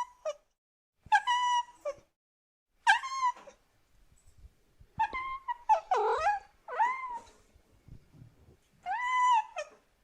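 Domestic cat meowing repeatedly: about six meows spaced a second or two apart, each rising and then falling in pitch.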